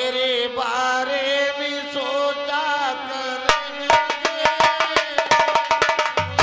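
A male singer holds a long, wavering note in a Hindi song over a steady accompanying drone. About three and a half seconds in, a hand drum starts a fast rhythm beneath the melody.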